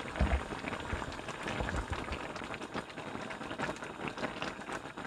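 Spicy braised chicken stew boiling in a pan, the broth bubbling with many small pops, with a few low thumps in the first two seconds.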